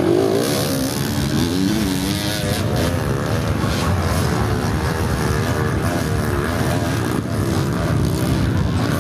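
Off-road motorcycle engine revving, its pitch rising and falling again and again.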